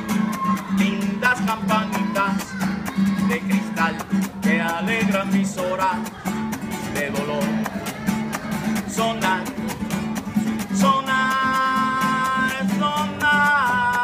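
Acoustic guitar played solo, strummed and picked in a busy instrumental passage; from about eleven seconds in, longer notes are held and left to ring.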